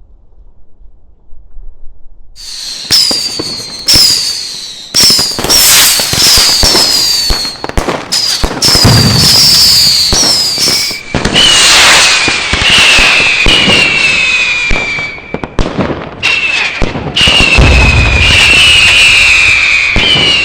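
Fireworks whistling: a rapid series of short, falling shrieks over hissing and crackling, starting about two seconds in and following one another roughly every half second. From about halfway the whistles are lower pitched.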